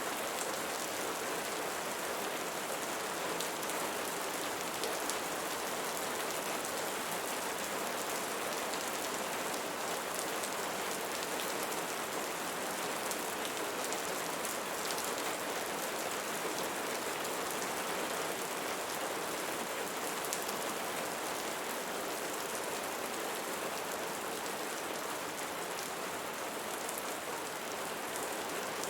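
Steady rain falling and pattering on a surface, an even hiss of many drops with no changes.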